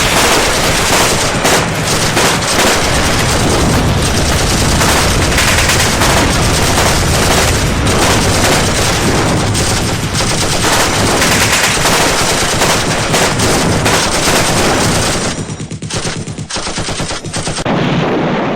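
Loud, sustained rapid automatic gunfire, many shots running together without a break, that thins out and turns patchier about fifteen seconds in.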